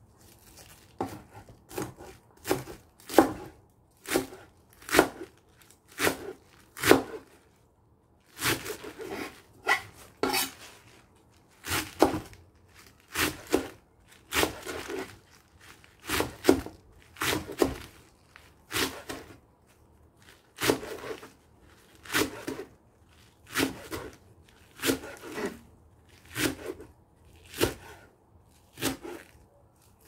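Chef's knife chopping a bunch of garlic chives on a plastic cutting board: a steady run of cuts, about one and a half a second, each ending with the blade knocking the board. A few strokes around the middle are longer and drawn out.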